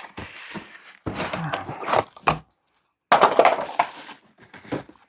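Cardboard box and packaging being opened and handled: rustling and scraping with a few knocks, in two stretches broken by a sudden cut to silence about halfway.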